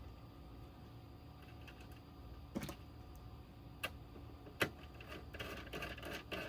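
Small parts of an oscilloscope being handled and fitted back together: three separate sharp clicks, then a quick run of small clicks and rattling near the end, like screws and plastic or metal pieces being handled.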